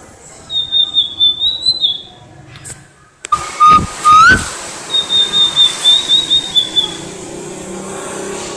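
Tledekan lait, a small songbird, singing. It gives two thin, high, wavering whistled phrases, each about a second and a half long, with two loud, sharp notes between them about halfway through.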